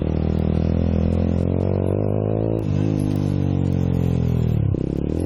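Motorcycle engine on the move. Its pitch climbs as it accelerates, breaks off sharply about two and a half seconds in, then winds steadily down as the bike slows. Near the end it dips again and starts to pick up.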